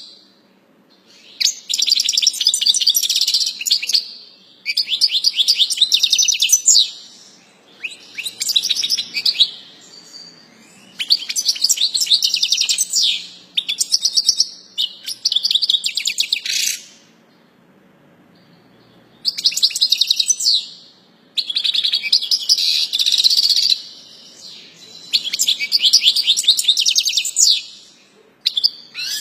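European goldfinch singing: phrases of rapid high notes, each one to three seconds long, with short pauses between them and a longer pause about two-thirds of the way through.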